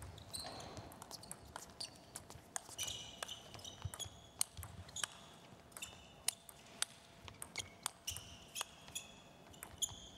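Table tennis ball clicking sharply off the paddles and table during a rally, in an irregular series of ticks. Short high squeaks of the players' shoes on the court floor come between the hits.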